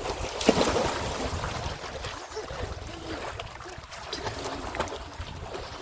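Wind rumbling on the microphone, with a few light knocks and faint voices in the background.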